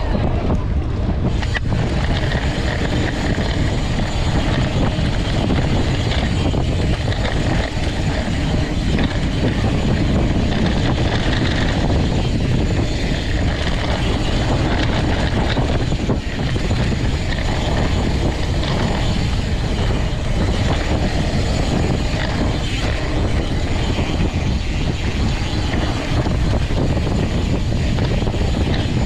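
Steady wind rush on the microphone of a camera riding on a moving mountain bike, mixed with the low rumble of the bike rolling fast over a dirt trail.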